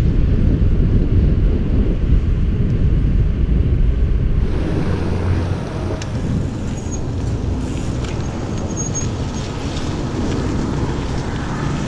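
Wind buffeting a cyclist's action-camera microphone while riding on a road, with road and traffic noise underneath. About four and a half seconds in, the low rumble eases and a brighter hiss takes over.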